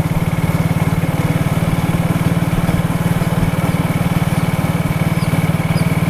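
A small engine idling steadily with a fast, even pulse and a faint high whine.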